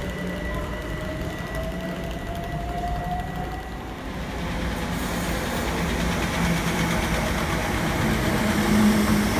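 Electric multiple-unit trains at a station platform: in the first seconds a steady high whine and a slowly rising motor whine from a Stansted Airport train pulling away, then, about four seconds in, a louder, steady rumble of a Greater Anglia electric train running close alongside the platform, with a low hum growing near the end.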